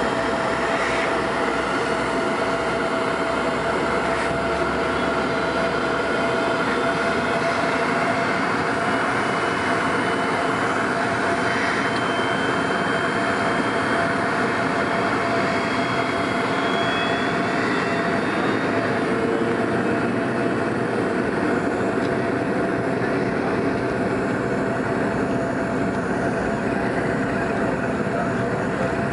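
Cabin noise inside a McDonnell Douglas MD-88 airliner rolling along the runway: a steady rumble and rush of its rear-mounted jet engines, with a steady whine held throughout and no change in level.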